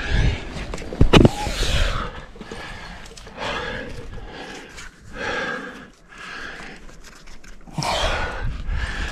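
Climber breathing hard in repeated heavy breaths, roughly one a second, while squirming up a sandstone crack. His body and clothing scrape against the rock, with a sharp knock about a second in.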